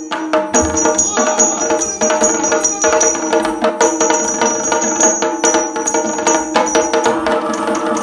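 Yakshagana accompaniment music: a steady drone under rapid drum strokes and the bright ringing of small hand cymbals, keeping a fast rhythm.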